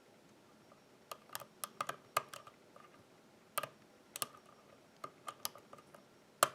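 Small, sharp, irregular metallic clicks of a lock pick working the pins of a Basta lock under tension, starting about a second in, as pins set one by one toward a full set.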